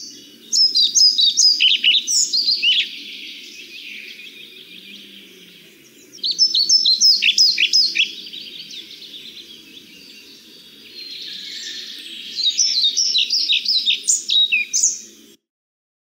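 European pied flycatcher (Ficedula hypoleuca) singing: three short, rapid phrases of high sweet notes, a few seconds apart, over faint low background noise.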